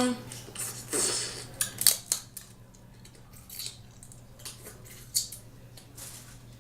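Close-up eating sounds of crab legs being eaten: shells cracking and snapping in scattered sharp clicks and short crackles, busiest in the first two seconds and sparser after.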